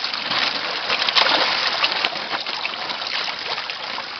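Water splashing and sloshing, with an irregular patter of small splashes, loudest about a second in, as koi thrash in shallow water while being handled.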